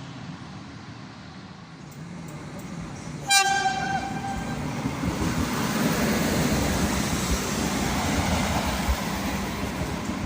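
A train sounds one short blast of its horn, a single high tone lasting about a second, then the rumble of the train running past builds up and stays loud.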